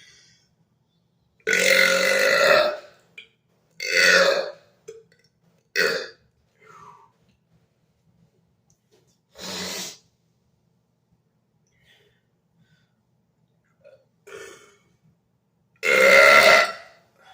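A man's forced burps on command, brought up from the stomach without drinking anything: a long loud burp about a second and a half in, shorter ones around four and six seconds, a weaker one near ten seconds, and another long loud burp near the end.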